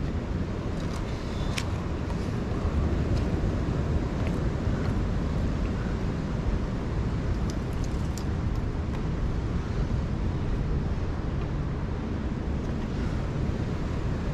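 Wind buffeting the microphone of a GoPro Hero 9 action camera, a steady low rumble, with sea noise under it. A few faint clicks about a second in and again around eight seconds in.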